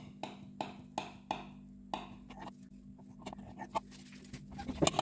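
Knife cutting through a soft milk-soaked cake, its blade clicking against the bottom of the glass baking dish: a run of light clicks about three a second, then scattered ones.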